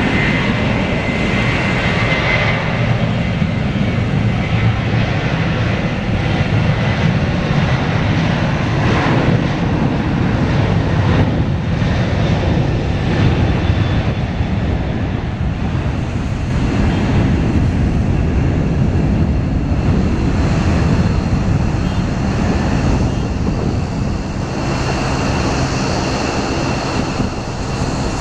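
Boeing 737-900ER's twin CFM56-7B turbofan engines at takeoff thrust as the jet accelerates down the runway and lifts off: a loud, steady, deep rushing noise. A thin high whine fades out in the first few seconds.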